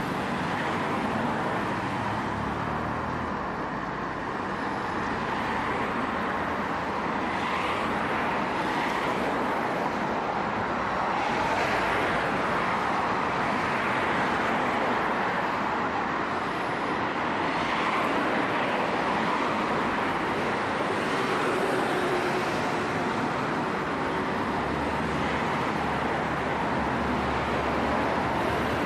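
Steady road traffic noise: a continuous wash of cars passing, swelling and easing every few seconds.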